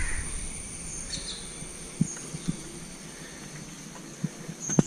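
Quiet outdoor ambience with a few short, high bird chirps and a few soft knocks.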